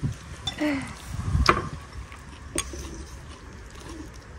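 Eel soup being served from a clay hot pot with a metal ladle: two sharp clinks of the ladle on crockery about a second apart, with a faint hiss between them.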